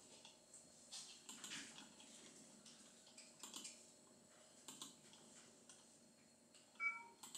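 Faint, scattered clicks of a computer mouse as menus and windows are operated, with a brief, louder pitched blip near the end.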